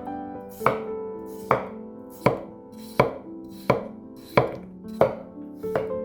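Knife chopping on a cutting board, one sharp chop about every three quarters of a second, about eight in all, over soft background music.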